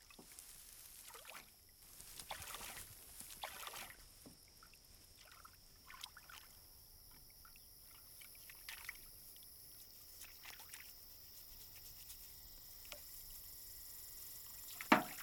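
Water sloshing and trickling in a tin washtub as a man washes himself, in soft scattered splashes, over a steady high hiss. One louder sharp sound comes near the end.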